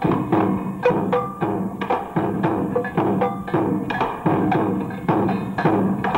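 Instrumental music driven by busy percussion: quick, sharp wooden clicks and drum strokes over a steady musical backing.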